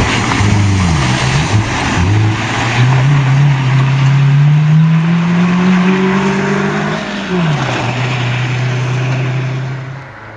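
Rally car's engine pulling away hard on a gravel stage, with gravel spraying at first. The engine note dips at gear changes, climbs steadily through one gear, drops sharply at the next shift about seven seconds in, then holds and fades near the end.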